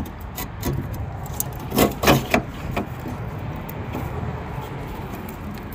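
Plastic wiring connectors being handled and slid into a new Dorman 923-012 taillight junction block: a few sharp clicks and knocks close together about two seconds in, over a low, steady rumble.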